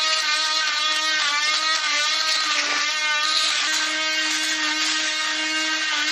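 A handheld power tool's motor running steadily with a high whine as the joints of an old concrete slab are cleaned out. Its pitch wavers and sags for a couple of seconds, as if briefly under load.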